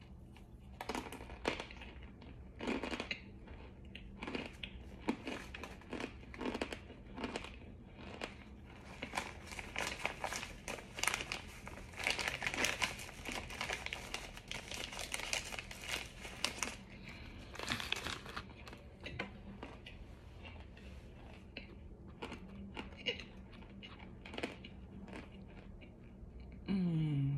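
Close-up crunching and chewing on hard, dry starch bricks: many sharp cracks, thickest and fastest in the middle stretch. A short humming voice falls in pitch near the end.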